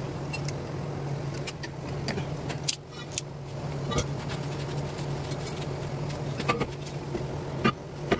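Scattered metallic clinks and scrapes from locking pliers and drum-brake parts being handled, with the cast brake drum being slid back over the shoes near the end, over a steady low hum.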